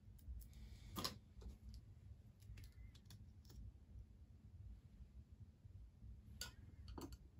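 Near-silent room with a few small, sharp clicks and taps from makeup tools being handled, a metal eyelash curler and a mascara tube. The sharpest click comes about a second in, lighter ones follow over the next few seconds, and two more come close together near the end.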